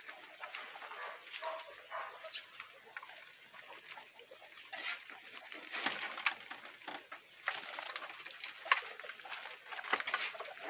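Guinea pigs feeding on fresh grass and straw in a pen: scattered crisp crackles of chewing and rustling bedding, with a few louder clicks in the second half.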